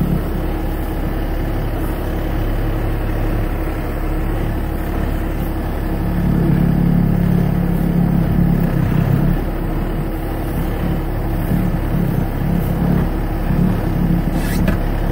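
Truck engine running at low speed, heard from inside the cab, a steady low hum that swells for a few seconds about halfway through. A short scrape near the end as the windshield wiper sweeps the glass.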